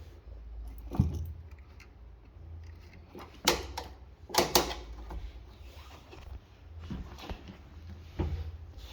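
A handful of sharp clicks and knocks, hard objects being handled and set down, with the two loudest a second apart in the middle, over a steady low hum.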